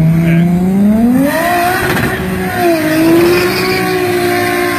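Toyota JZ-series straight-six revving up sharply about a second in, then held at high revs while the rear tyres spin in a smoky burnout, with a hiss of tyre noise.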